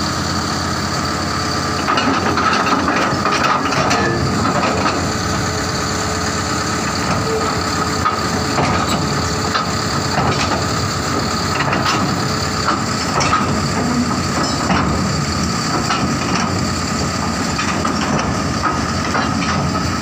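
Bulldozer's diesel engine running steadily with a high whine, with scattered knocks and clanks of steel track parts.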